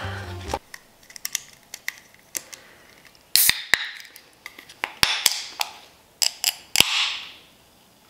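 Aluminium drink can being handled, with a series of sharp clicks as fingernails work at the ring-pull, then cracked open with a pop and a short fizzing hiss near the end.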